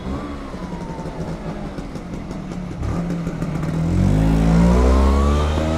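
Motor scooter engine running as it rides through, then accelerating about four seconds in, rising in pitch and getting louder.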